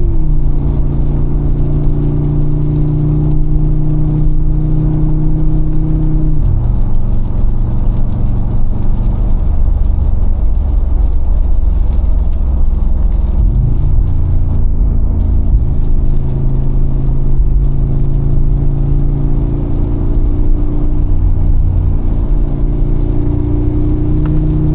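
Mercedes-AMG G63's 4.0-litre twin-turbo V8 cruising under light load. Its pitch drops sharply at the start and again about a quarter of the way through, like gear changes up. It jumps up about halfway, creeps slowly higher, and drops again at the very end.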